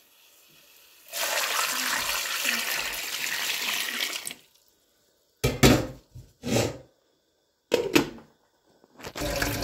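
Tap water pours into a pot of whole potatoes, carrots and eggs for about three seconds. After a pause come a few short, loud splashes and knocks as a gloved hand moves the vegetables in the water, and water starts running again near the end.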